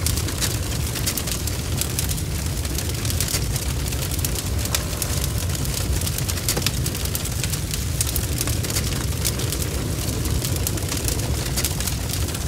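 Sound effect of flowing lava: a steady low rumble with dense crackling over it.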